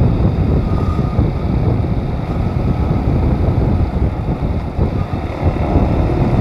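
Wind buffeting the microphone of a moving motorcycle, mixed with motorcycle engine noise, loud and mostly low and steady.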